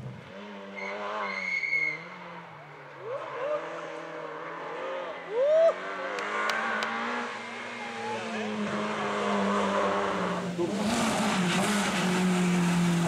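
Rally car engines revving hard and shifting through the gears at full throttle, with short tyre squeals as the cars take corners; several different cars follow one another. Near the end the engine and road noise grow rougher and louder.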